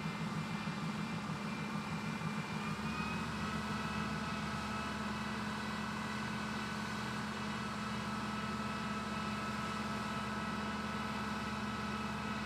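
5-axis CNC woodworking machine running: a steady hum with a high whine that steps up slightly in pitch about three seconds in.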